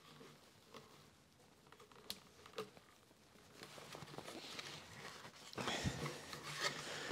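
Black plastic pipe being twisted and forced into the rubber seal of an orange soil-pipe Y fitting, lubricated with soapy water. A couple of light clicks at first, then plastic rubbing and scraping against the seal builds from about halfway, loudest near the end, with one dull knock.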